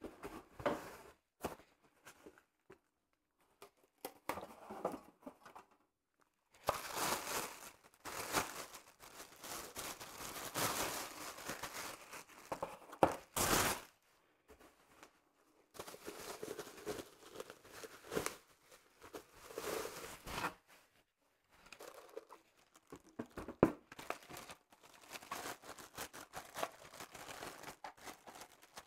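Cardboard box flaps and plastic packaging being handled, rustling and crinkling in several stretches with pauses between them, with a few sharp knocks.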